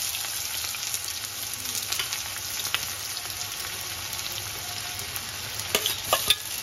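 Chopped onions sizzling steadily in hot oil in a steel kadhai. Near the end there are a few sharp knocks as more onion is tipped in from a steel bowl.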